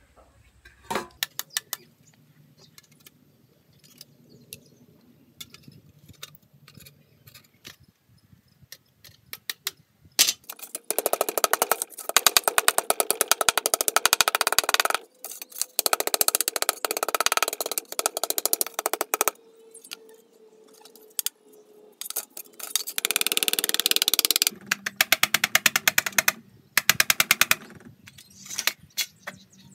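Pliers prying and scraping at the thin rusty metal of an antique tin money box. Scattered clicks and taps at first, then several long runs of rapid rasping, clattering clicks from about ten seconds in, with short pauses between them.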